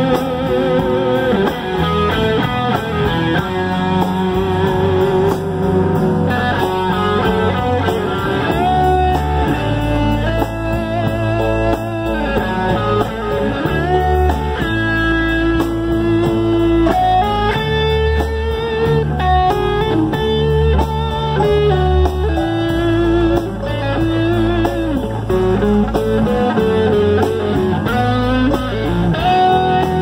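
Live band instrumental break led by an electric guitar solo, its sustained notes bent and shaken with vibrato, over bass and drums.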